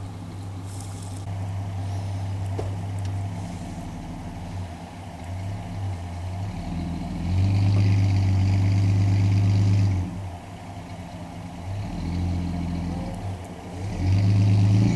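80-series Toyota Land Cruiser engine running low, then revving hard under load for about three seconds from around seven seconds in and again briefly near the end, as one truck pulls the other through deep snow on a line.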